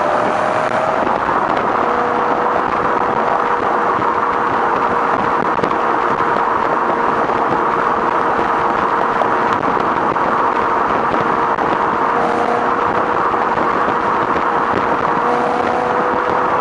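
BMW exhaust heard close to the tailpipes while the car cruises at steady speed: an even engine note that holds one pitch, with no revving, under road and wind noise.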